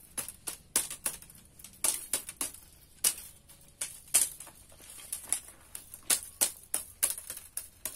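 Repeated sharp knocks of a hand tool tapping woven bamboo strips, about three a second and irregular, to press the weave tight.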